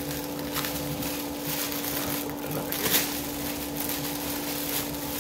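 Plastic packaging crinkling and rustling in irregular bursts as a set of wooden signs is unwrapped by hand, with a louder crackle about three seconds in. A steady low hum runs underneath.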